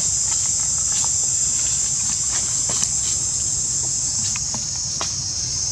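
Steady high-pitched chorus of insects, with scattered faint clicks and taps.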